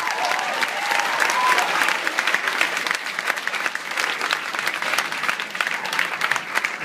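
Audience applauding, dense steady clapping from many hands.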